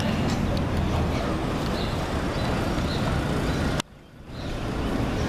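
Street traffic noise: a steady low rumble of vehicle engines. About four seconds in, the sound cuts out abruptly for about half a second, then fades back in.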